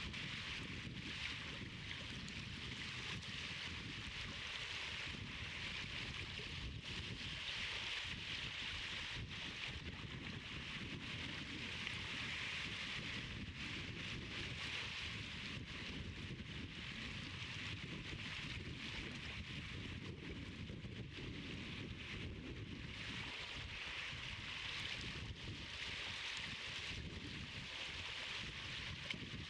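Steady outdoor wind noise, a low rumble on the microphone with a hiss above it that swells and eases every few seconds.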